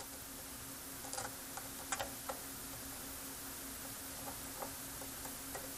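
Faint, scattered clicks of metal multimeter probe tips tapping and scraping against solder joints and traces on a circuit board, a few closer together about a second in, over a faint steady low hum.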